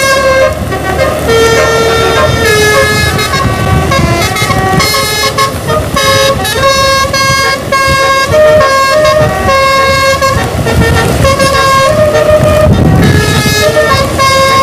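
Indonesian bus 'telolet' musical air horn on a Sumber Jaya bus playing a tune of held notes that step in pitch every second or so, often more than one at a time. Under it runs a steady low rumble from the bus.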